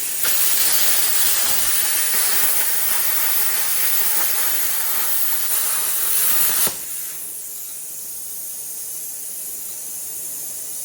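YesWelder CUT-55DS plasma cutter arc cutting through a 5/8-inch steel bolt, a loud steady hiss running about six seconds, then cutting off abruptly as the torch stops. This is the finishing pass through the bolt, at about 35 amps and low air pressure (about 20 psi). A quieter steady hiss of air carries on afterwards.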